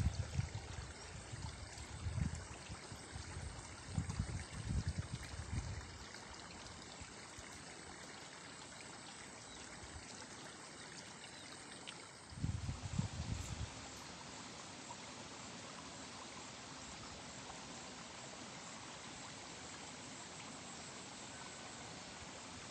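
Steady rushing of running water, with wind buffeting the microphone in low gusts during the first six seconds and again briefly about twelve seconds in.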